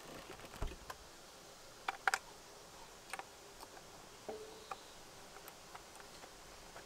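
Light, scattered clicks and ticks as the plastic side shroud of a Honda CB500F is pressed into place and its bolt is turned with an Allen key. A low bump comes under a second in, and the loudest clicks come around two seconds in.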